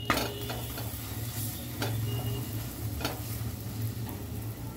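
Paratha sizzling in ghee on a hot iron tawa, over a steady low hum, with a few short scrapes and taps of a metal spatula pressing it down as it roasts.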